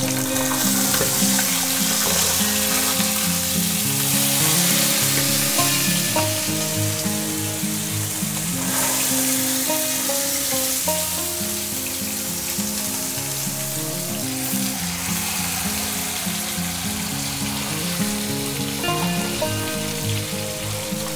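Whole masala-coated fish shallow-frying in hot oil in a nonstick pan on a medium flame, the oil sizzling steadily.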